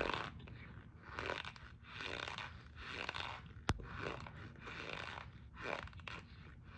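Cornstarch being chewed: a run of squeaky, crunching bites, about one a second, with one sharp click a little past the middle.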